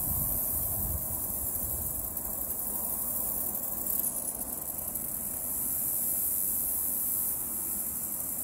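Outdoor ambience: a steady, high-pitched drone of insects, with a low rumble of wind or handling on the microphone that is stronger at the start.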